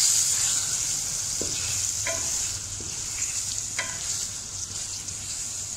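Chicken and spices sizzling in hot oil in an aluminium kadhai as they are stirred with a wooden spatula, with a few faint scrapes of the spatula on the pan. The sizzle slowly grows quieter.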